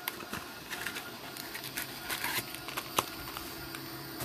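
Foil-wrapped baseball card packs being handled and squared into a stack on a cutting mat: wrapper crinkling with a run of light taps and clicks, the sharpest about three seconds in.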